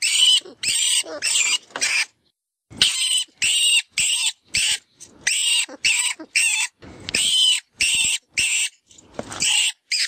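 Rat distress call, the FoxPro 'Vermin Pest Control' predator-caller sound: a fast run of short, shrill squeals, two or three a second, with a short pause about two seconds in. It imitates a rodent in trouble and is used to call in foxes.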